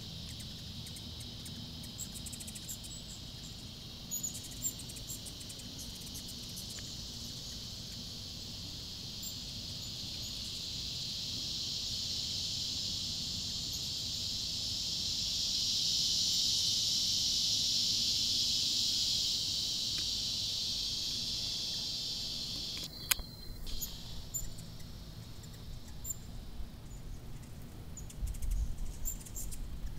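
Insects droning in a steady high chorus that swells to its loudest around the middle, then fades and breaks off suddenly about two-thirds of the way through; faint short chirps and a few sharp clicks come over it.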